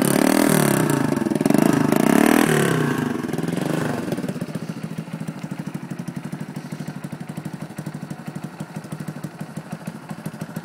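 1974 Honda XL175's single-cylinder four-stroke engine, just after a cold start, revved up and down a few times, then dropping back to a steady, pulsing idle about four seconds in.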